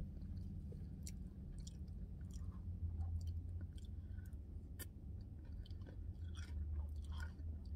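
Close mouth sounds of someone eating ice cream with chocolate-covered pretzel pieces: chewing and smacking, with scattered small clicks, over a low steady hum.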